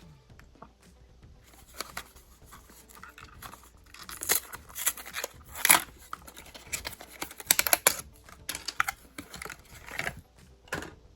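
Cardboard and plastic blister packaging of a Matchbox car being torn open by hand: a run of sharp crackles, clicks and tearing, busiest from about four seconds in.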